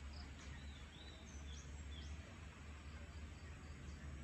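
Faint birds chirping, a few short high calls and quick falling notes in the first half, over a steady low outdoor rumble.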